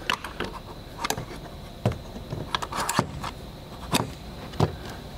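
Irregular sharp clicks and light knocks, roughly one a second, of hand tools and hardware being handled and set in a toolbox drawer.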